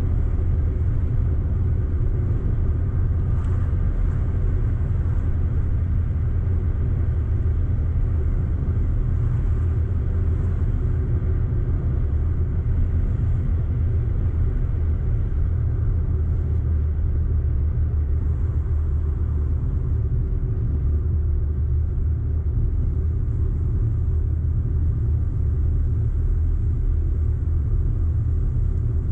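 An Audi car being driven at a steady pace: an even, low engine and road rumble with no rise or fall in revs.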